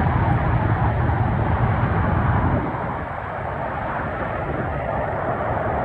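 Embraer ERJ-145 regional jet's twin turbofan engines running at go-around power as the aircraft climbs away after an aborted landing. Steady jet rumble whose deep low end drops off about two and a half seconds in.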